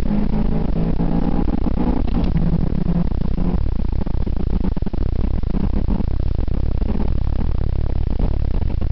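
Car engine pulling at a steady pitch from inside a moving car with the window down. After about three and a half seconds the engine note fades under heavy wind buffeting and road rumble.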